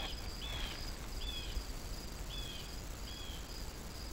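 Outdoor field insects trilling steadily in evenly pulsed high notes, with a short high chirp repeating about once a second.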